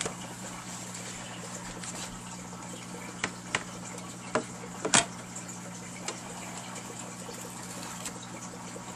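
A few light clicks and taps from hands working at the ribbon-cable connector inside an opened LCD monitor, the sharpest about five seconds in, over a steady low hum and hiss.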